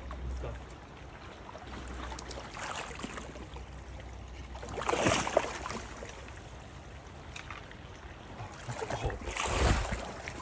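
Water splashing in a shallow stream as a wading angler handles a landed trout at the net, over the steady trickle of the stream. There are two louder splashes, one about five seconds in and one near the end.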